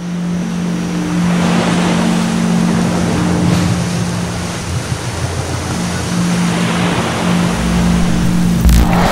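Ocean waves rushing and washing in surf, with a steady low hum underneath.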